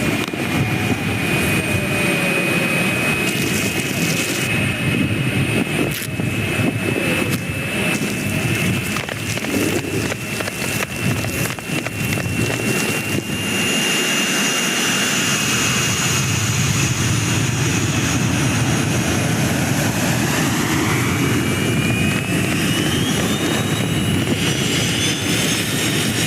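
Jet airliner engines at takeoff: a loud, dense rushing noise with a steady high whine, and from about two-thirds of the way through, a second whine that climbs steadily in pitch.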